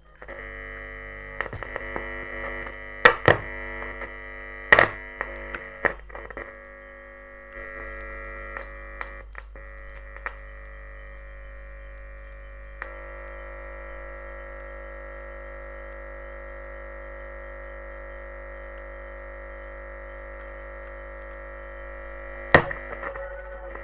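Loudspeaker driven by a home-built power amplifier putting out a steady buzzing hum with mains hum beneath it, broken by sharp pops and crackles several times in the first few seconds and once near the end. The buzz and pops come from a loose signal wire to the USB MP3 player module. The hum's tone shifts about halfway through.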